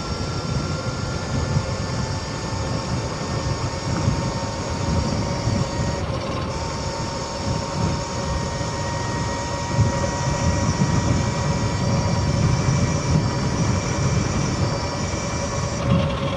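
XPRO Drax 72V electric dirt bike being ridden: its electric motor gives a steady whine at several pitches, which shifts slightly partway through, over an uneven low rumble.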